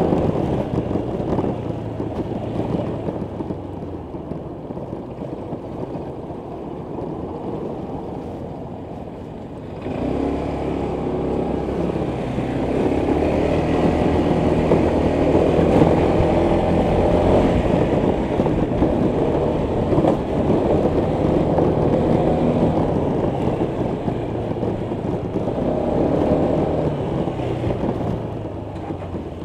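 Honda PCX 125 scooter's single-cylinder four-stroke engine running on the move, with wind rush on the rider's body-worn microphone. It drops back for a few seconds from about four seconds in, then picks up sharply about ten seconds in and keeps pulling.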